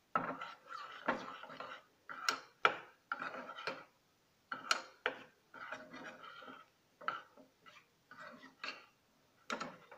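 Spoon stirring melted chocolate in a small stainless-steel bowl: irregular scraping strokes against the bowl's sides, with a few sharp clinks of spoon on metal.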